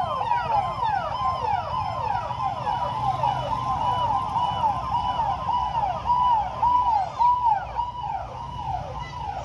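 Electronic siren sounding a fast yelp, its pitch sweeping over and over at about two sweeps a second, a little fainter near the end.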